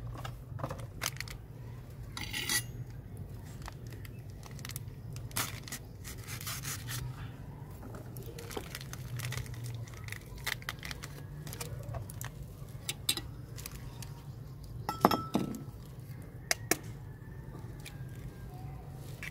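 Small handling sounds: a foil packet rustled and torn open, and a steel spoon clinking and scraping against clay bowls, in scattered taps over a low steady hum. One sharper ringing clink comes about three quarters of the way through, and an egg is cracked on a clay bowl's rim near the end.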